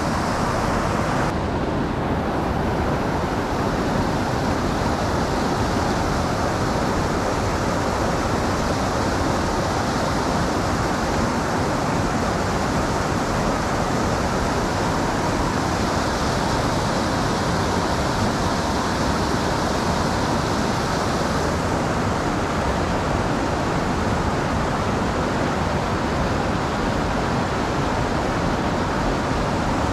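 Steady rush of creek water flowing over a riffle, close to the microphone.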